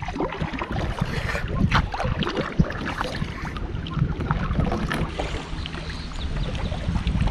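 Kayak paddle strokes splashing in the water, with irregular short splashes and knocks, over wind rumbling on the microphone.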